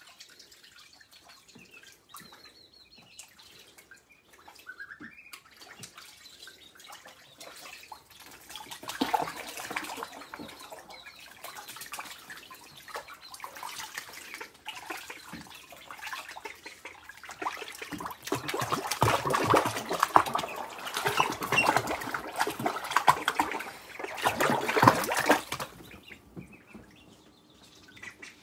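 Young ducks splashing and paddling in a sink full of water, with soft high peeping. The splashing starts about eight seconds in and is heaviest in the second half, then dies away near the end.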